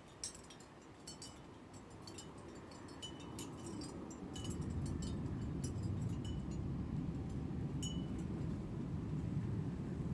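A woodpecker's sharp, irregular ticks: single short clicks every half second to a second, some with a brief high ring. A low rumble comes up about halfway through.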